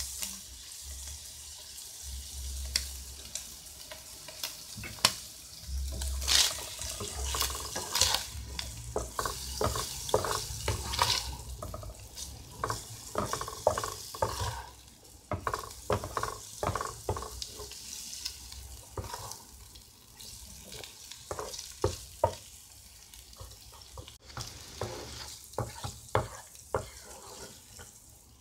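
Diced chicken frying in oil in a non-stick pan, a steady sizzle, while a wooden spoon stirs it, with frequent short scrapes and knocks of the spoon against the pan.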